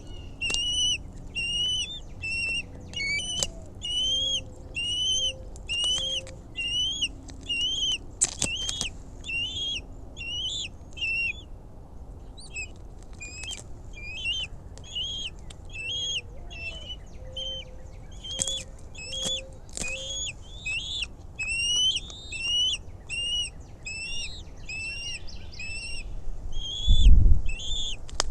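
Bald eagle calling at the nest: a long, steady series of high, thin upslurred chirps, about two a second. Fainter, lower hoot-like notes come in twice, and there is a low thump near the end.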